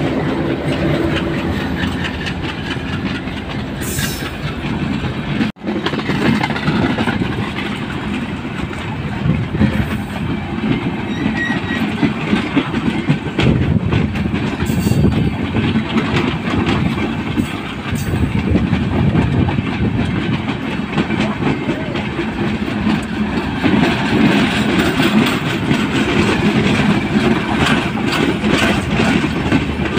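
Bangladesh Railway intercity passenger coaches running past close by: a steady, loud rumble of steel wheels on the rails, with a constant clatter of clicks, and a momentary dropout about five seconds in.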